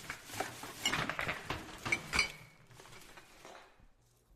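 Irregular clinking and rattling of glass and metal objects being handled, with two short glassy rings about two seconds in.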